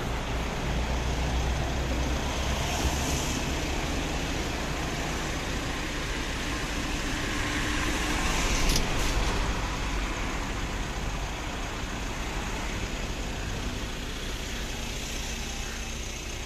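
Road traffic passing on a highway: a steady rumble of tyres and engines that swells as vehicles go by, about three seconds in and again around the middle.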